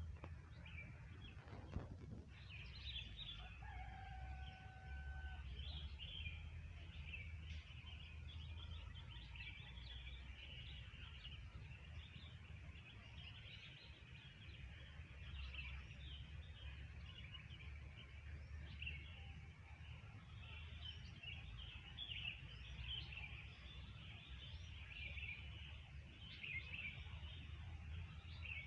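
Many wild birds chirping and twittering together without a break, over a steady low rumble. About four seconds in, one held whistled note lasts a second and a half.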